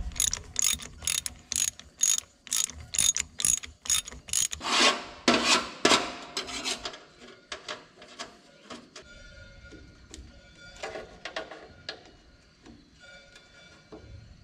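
Hand ratchet wrench clicking as a bolt is turned, a steady run of about three clicks a second, then a few louder scrapes and clunks and lighter clatter near the end.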